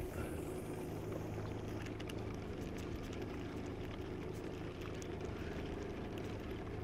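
Boat motor running steadily at low speed, a low even hum, with light water noise around the hull.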